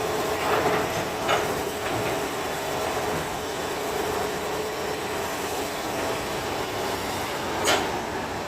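Excavator running steadily, with a few sharp metallic knocks: one just after the start, one about a second in, and a louder one near the end.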